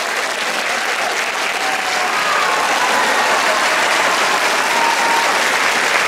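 Concert audience applauding steadily.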